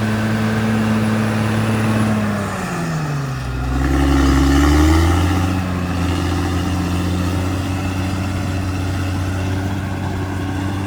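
CAT D6R XL bulldozer's diesel engine running steadily, its engine speed dipping about two and a half seconds in and climbing back with a deeper rumble around four to five seconds in, then settling into a steady run.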